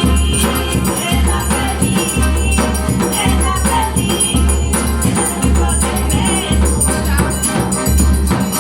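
Forró music: a sanfona (piano accordion) melody over a zabumba drum's low pulse, with triangle and acoustic guitar.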